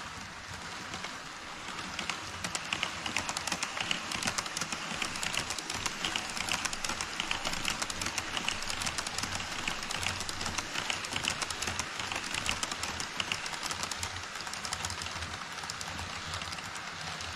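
HO-scale model trains running over a model truss bridge on Kato Unitrack: a fast, continuous clatter of small wheels on the track over a steady rushing hiss. It grows louder about two seconds in as the trains come close.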